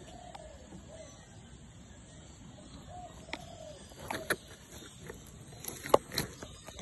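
Handling noise on a phone's microphone as a monkey fumbles the phone: scattered knocks and scrapes from about halfway through, the sharpest just before the end. Behind them a bird gives short repeated calls.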